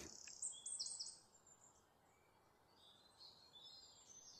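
Faint bird chirps over near silence: a quick run of short, high chirps in the first second, then a few sparser ones later.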